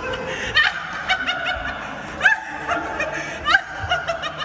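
A man laughing in short, repeated bursts of chuckling.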